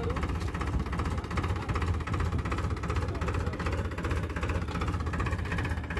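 Powertrac Euro 50 tractor's diesel engine idling steadily, with a fast even firing beat.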